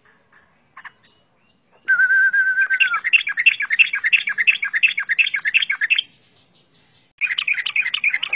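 Yellow-vented bulbul (trucukan) singing loudly. A wavering whistle for about a second runs into a fast, bubbling string of repeated notes, about four a second, for three seconds. After a pause of about a second, another fast burst comes near the end.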